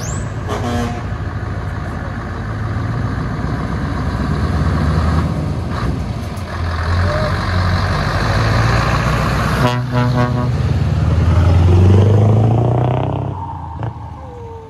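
Scania V8 diesel truck engine running and pulling away, getting louder to a peak about twelve seconds in and then fading. Short horn toots sound near the start and again about ten seconds in.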